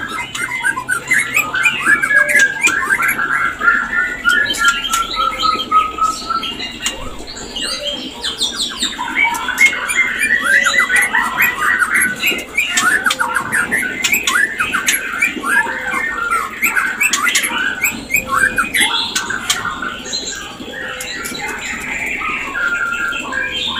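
White-rumped shama calling in dense, fast runs of chattering, squawky notes and short whistled phrases, the mating calls used to bring shamas into breeding condition. Sharp clicks are scattered through the calls.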